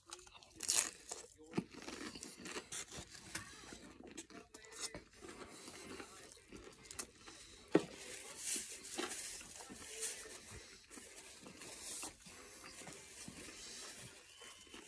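Close-up biting and chewing of a crunchy Doritos Locos-style taco: a hard shell with nacho cheese dust, filled with meat and cheese. The crunches are irregular, with a sharp loud crack a little before halfway.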